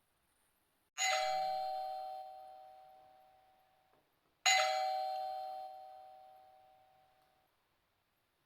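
Doorbell chime rung twice, about three and a half seconds apart. Each ring is a single struck tone that fades out over about three seconds.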